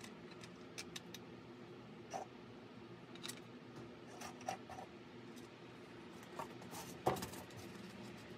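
Small metal seat brackets and hardware clicking and clinking as they are handled on a workbench, with a louder knock about seven seconds in; a faint steady hum underneath.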